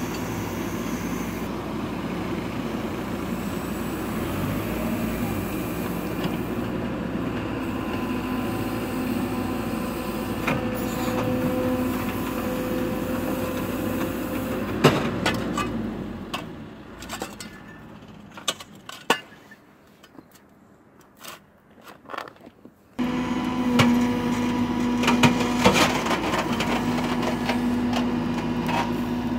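Cat 428F backhoe loader's diesel engine running steadily, with sharp knocks starting about halfway through. The engine sound fades to a much quieter stretch of scattered knocks for several seconds, then returns abruptly as the backhoe bucket digs in the trench.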